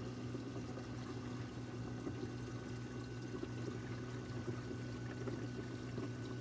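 Water running and trickling steadily in a reef aquarium sump, over a steady low hum from the aquarium's pumps and equipment.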